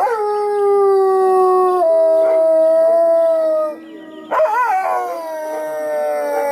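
Wolves howling. One long howl starts high, drops quickly and holds, stepping down in pitch about two seconds in and ending near four seconds. After a short break a second howl wavers, then glides slowly down, with a steady lower howl underneath throughout.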